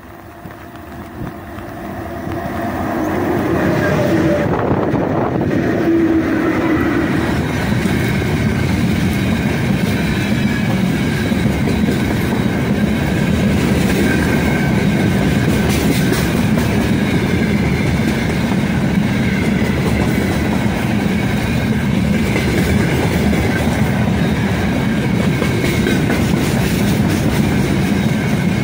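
A 3ES5K 'Ermak' electric freight locomotive approaches and passes, its sound swelling over the first few seconds with a whine that drops in pitch as it goes by. Then a long freight train of open-top wagons rolls past with a steady rumble of wheels on rails.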